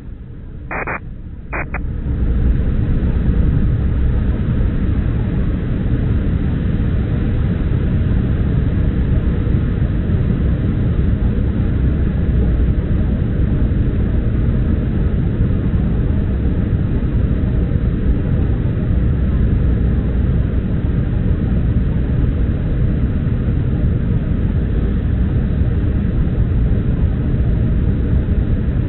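Steady in-cabin noise of an Embraer 175 airliner in flight on approach: the rumble of its twin turbofan engines and the airflow over the fuselage. About two seconds in, this noise comes up out of a quieter stretch that holds two short blips.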